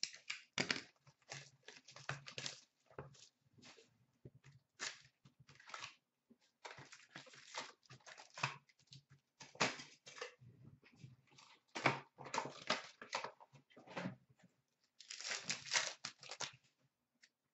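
Hockey card packs of 16-17 Upper Deck Ice being torn open: crinkling wrappers and rustling cards in quick, irregular bursts, louder in clusters later on.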